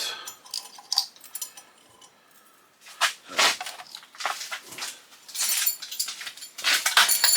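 Loose metal scrap parts clinking and clattering as they are handled: a few sharp clicks, then a denser run of rattling near the end.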